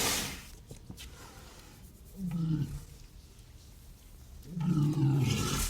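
Cartoon giant walrus growl effects, a gruff voice mixed with realistic walrus sounds: a loud call fading out at the start, then two low, rough calls, one about two seconds in and a longer one near the end.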